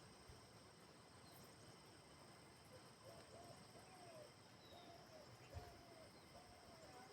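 Faint natural outdoor ambience: a steady, high insect drone, and from about three seconds in, a string of five or six short, low calls from an animal.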